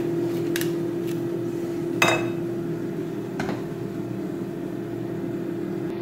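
Kitchenware clinking and knocking a few times as pots and dishes are handled, the loudest knock about two seconds in, over the steady hum of a running kitchen appliance.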